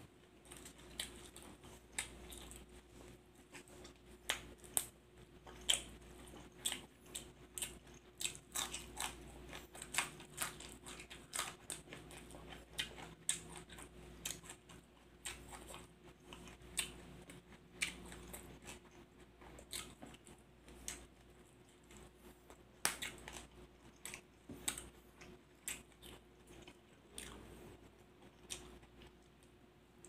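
A man chewing a mouthful of grilled-pork larb with sticky rice and raw vegetables: irregular crunches and wet mouth clicks, several a second.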